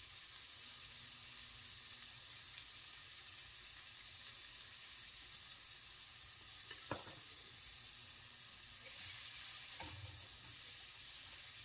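Zucchini slices sizzling quietly as they pan-fry in a stainless steel skillet, a steady soft hiss. A light knock about seven seconds in, and metal tongs handling a slice in the pan near the end.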